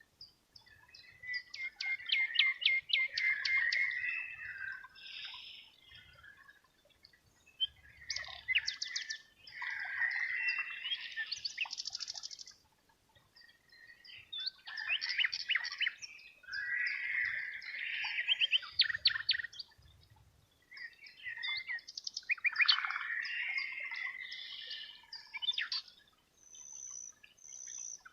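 Songbirds singing: phrases of quick chirps and rapid trills, each a few seconds long, with short pauses between.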